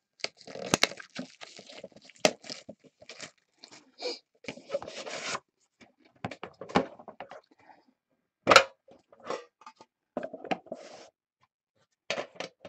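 Cellophane shrink wrap crinkling and tearing as it is peeled off a sealed trading card box, dense for the first five seconds or so. Then scattered rustles and a few sharp clicks as the box is handled and its lid is opened.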